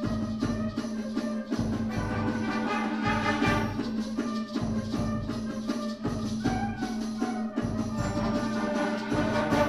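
School concert band playing: sustained wind chords over a steady pulse of short percussion strokes.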